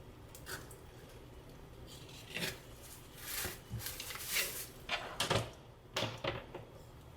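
A series of short scraping and clattering noises, about six strokes spread irregularly, from a tool working with tile adhesive.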